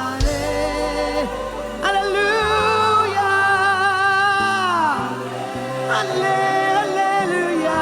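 Gospel worship song: voices sing long, wavering held notes over instrumental backing, with one phrase sliding down in pitch about five seconds in.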